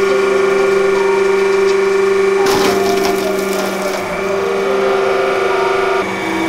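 A hydraulic press's pump motor hums steadily while the ram crushes a block of ice. About two and a half seconds in, the ice cracks and shatters in a burst of crackling that lasts about a second and a half. Near the end the hum drops slightly in pitch.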